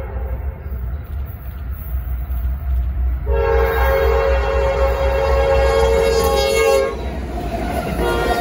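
Norfolk Southern freight train's lead diesel locomotive sounding a long blast on its multi-note air horn, held for about three and a half seconds starting a few seconds in, with another blast beginning near the end. The locomotives' diesel engines make a steady low rumble underneath as the train closes in.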